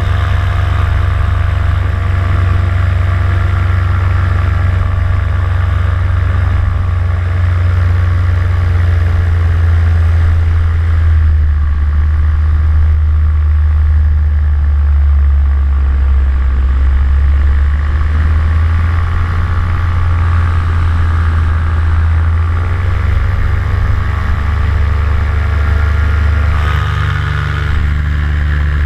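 Vittorazi Moster 185 two-stroke paramotor engine and propeller running steadily in flight, with small shifts in pitch in the last few seconds.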